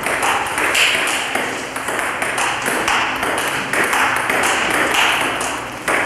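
Celluloid-type table tennis ball clicking off rubber-faced paddles and bouncing on the table in a fast, continuous rally, a quick, even run of clicks.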